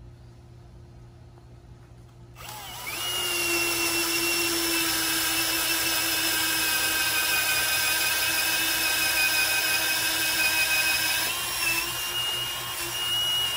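Cordless drill boring a long wood bit down through a wooden bunker board. After a couple of quiet seconds the drill starts and runs at a steady whine, its pitch shifting slightly about three-quarters of the way through as the bit works deeper.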